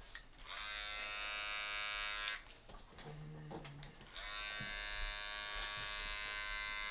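Electric hair clippers buzzing. They come on about half a second in, stop a little after two seconds, and start again about four seconds in, running steadily.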